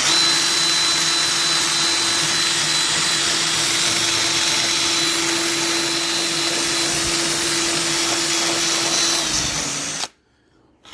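Electric drill with a rounded-tip bit running steadily while it grinds rust and body filler off a car's rear C-pillar, a steady motor whine under a harsh grinding hiss. The motor winds down and stops about nine to ten seconds in.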